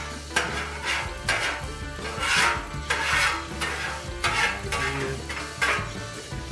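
Flat metal spatula scraping across the steel cooktop of a Blackstone griddle in repeated short strokes, clearing the cooking surface, with a little sizzle underneath.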